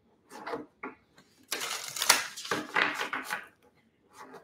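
A deck of oracle cards being shuffled by hand: papery flicking and slapping of the cards in a few short bursts, then a longer run of about two seconds, then another short burst near the end.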